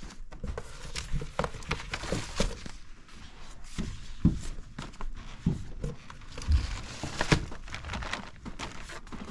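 Rustling and crinkling with irregular clicks and knocks, the sound of items being handled and shuffled in a small room.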